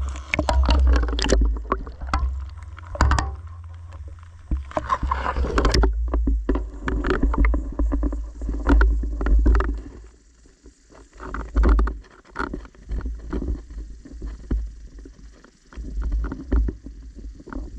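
Muffled underwater audio from a submerged GoPro: a heavy low rumble of moving water with many irregular knocks and clicks.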